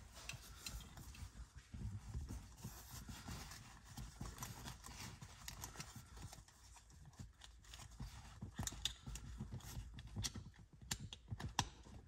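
Faint rustling and irregular clicking of nylon straps and plastic buckles as the Pupsaver dog car seat's red straps are hooked around a car's lap belt, the clicks coming quicker a few seconds before the end.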